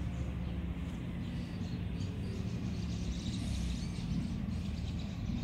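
Steady low rumble of a SEPTA Regional Rail electric train approaching from a distance, with birds chirping lightly over it.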